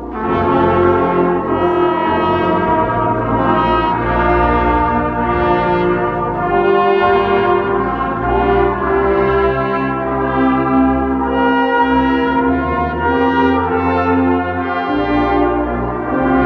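Brass ensemble playing sustained chords in several parts over a low bass line.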